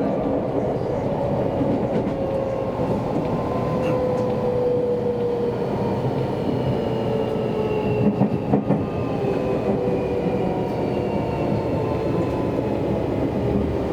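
Seibu Railway electric train running, heard from inside the car: a steady rumble of wheels on rail with a motor whine slowly falling in pitch as the train slows. A few short wheel knocks come about eight seconds in.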